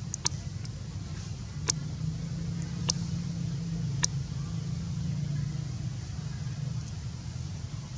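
A steady low motor hum, with four sharp clicks about a second apart in the first half.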